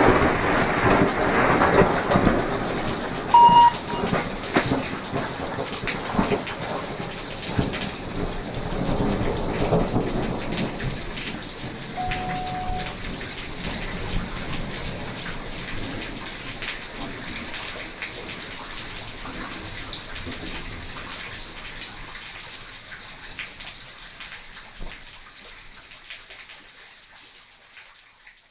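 Thunder from a nearby lightning strike rumbling and dying away over the first ten seconds, over steady rain, with the rain fading out near the end. A brief high tone sounds about three and a half seconds in, and another short tone about twelve seconds in.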